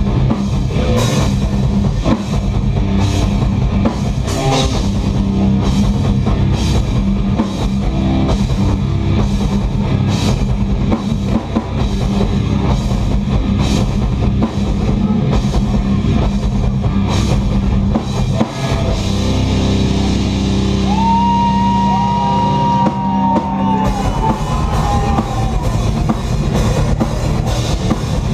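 Live heavy rock band playing loud, with drum kit, cymbals, distorted guitar and bass. About 18 seconds in, the drums drop out for a few seconds under a held low note and a high guitar note that bends, then the full band comes back in.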